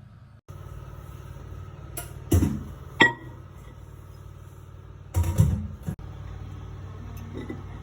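Steady low hum of a running microwave oven, with a few sharp knocks and a ringing clink about three seconds in and a cluster of clunks about five seconds in.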